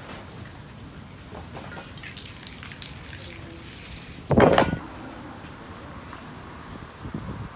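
Metal spray-paint cans clinking and rattling in a quick run of sharp clicks, followed about four seconds in by a single loud, short burst of noise.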